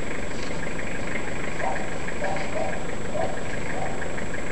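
Pickup truck engine idling steadily, with a quick, regular ticking running through it.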